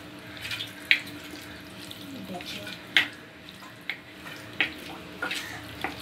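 A hand squishing and turning raw chicken pieces in a wet spice-paste marinade in a steel bowl: squelching, with a handful of sharp wet smacks, the loudest about a second in and near the middle. A faint steady hum runs underneath.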